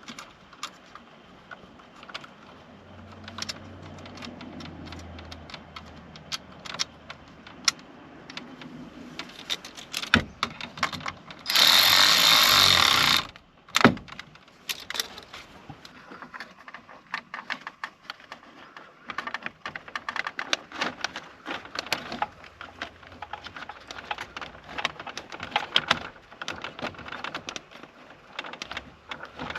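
Hand tools and parts clicking, knocking and rattling during dashboard work, with a loud, steady hiss for about two seconds near the middle.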